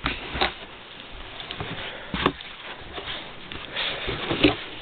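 Corrugated cardboard box flaps being pulled open and rubbed by hand: irregular scraping and rustling, with two sharp snaps about two seconds in and near the end.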